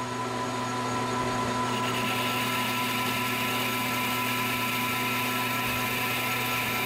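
Metal lathe boring the inside of a 1144 Stressproof steel part with an insert boring bar. The lathe's steady hum runs throughout, and about two seconds in the cut begins, adding a steady higher-pitched cutting noise.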